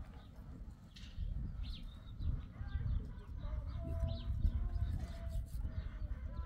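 Small birds chirping in short, scattered calls over a steady low rumble.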